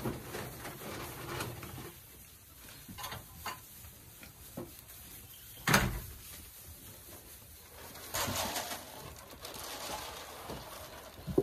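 Goats and a person moving about on straw bedding in a wooden barn, with soft rustles and small knocks. About six seconds in comes one sharp knock, the loudest sound, and a little after eight seconds a brief rustling rush as feed is tipped from a scoop into the goats' trough.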